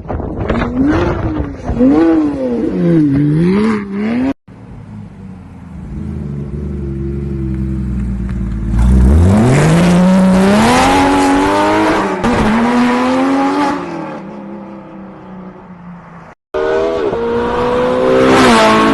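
Porsche engines revving in three short clips. First come quick blips that rise and fall several times. Then a low idle climbs into a long, loud rev with heavy tyre noise, as in a burnout or drift. Near the end a third engine revs up.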